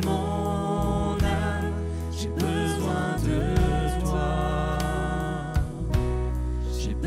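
Live worship band playing a slow ballad, keyboard, electric and bass guitar and drums with cymbal strokes, under singers' voices. The bass note changes about three seconds in.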